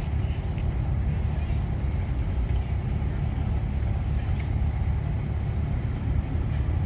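Low, steady rumble of wind buffeting the microphone, with a few faint high chirps now and then.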